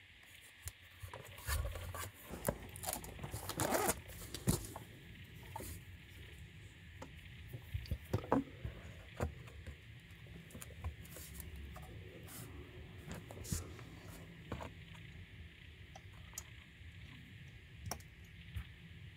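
Handling noise as a small network switch and its Ethernet cables are moved about and pressed against a skirting board: scrapes, rustles and a scatter of clicks, busiest in the first few seconds and sparser after.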